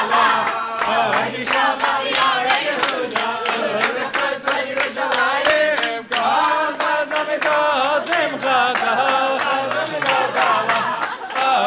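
A crowd singing together loudly, with handclaps, as guests dance; the singing breaks off briefly about six seconds in.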